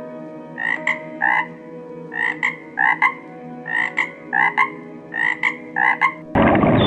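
A frog croaking in short paired calls, two quick croaks about every second and a half, four pairs in all. Near the end a loud, rushing sound abruptly cuts in.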